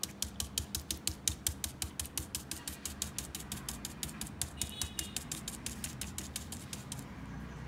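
A stencil brush dabbed rapidly with chalk paint onto a plastic stencil laid over a coaster: a quick, even run of taps, about seven a second, that stops near the end.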